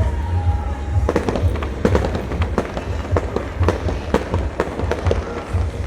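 Aerial fireworks going off in quick succession: many sharp bangs and crackles, several a second, over a constant low rumble.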